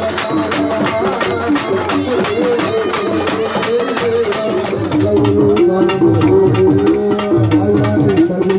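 Traditional festival music: fast, even drum strokes, about four or five a second, under a wavering melody line. The music changes and gets louder about five seconds in.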